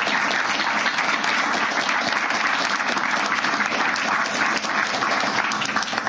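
Audience applause: many people clapping steadily together.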